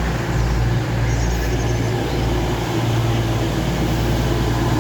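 Underfloor diesel engines of a Class 222 Meridian diesel multiple unit running with a steady hum as the train comes into the platform.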